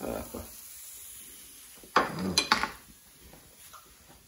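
Pizzette frying quietly in a pan, then a short clatter of sharp clinks about two seconds in as a utensil knocks against the pan and a ceramic plate while one is served.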